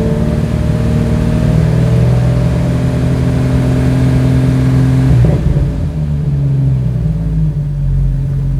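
Jeep Wrangler YJ engine held steady at raised revs. About five seconds in the throttle is released and the engine drops back to a steady, lower idle.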